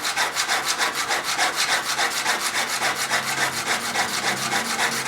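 Steel chisel bevel rubbed back and forth on a wet medium-grit diamond sharpening stone: a rhythmic scraping at about four strokes a second.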